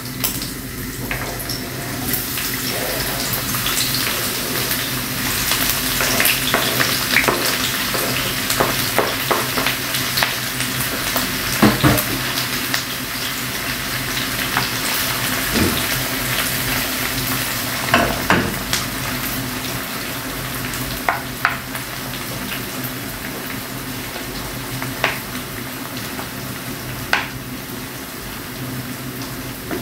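Sliced onions sizzling in hot oil in a non-stick frying pan, the hiss swelling once they go in. A spatula knocks and scrapes against the pan now and then as they are stirred.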